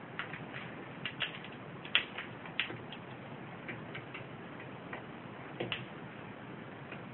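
Irregular sharp taps of small doves' beaks pecking seed off a plywood shelf, the loudest about two seconds in.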